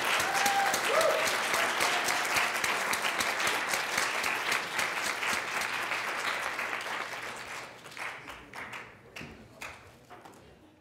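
Audience applauding: dense, even clapping that fades after about seven seconds and thins to a few scattered claps near the end.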